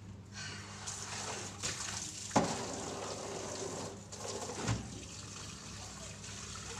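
Water running from an outdoor tap while clothes are washed by hand under it, with a sharp knock about two seconds in and a duller thump a couple of seconds later.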